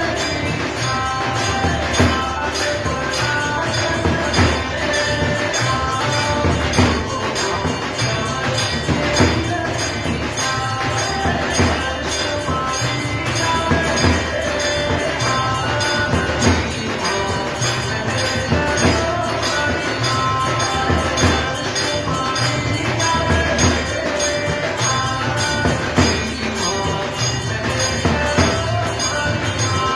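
Devotional aarti music with a steady beat, jingling percussion and held melody notes. A strong accent comes about every two and a half seconds.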